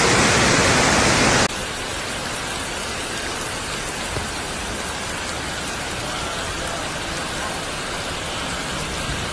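Floodwater torrent rushing loudly, cut off suddenly about a second and a half in, then a quieter steady hiss of rain and floodwater flowing across a street.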